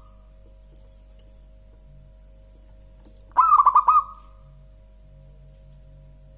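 Zebra dove (perkutut) cooing: one short phrase of quick rolling coos about halfway through.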